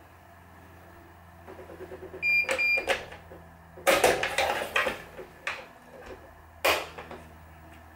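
Two short, high electronic beeps from the Wise 2086 tension head of a racquet stringing machine, followed by several sharp clicks and knocks from string and a machine clamp being handled. A low steady hum runs underneath.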